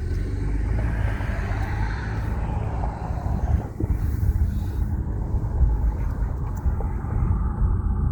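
A car driving along, with a steady low rumble of road and wind noise.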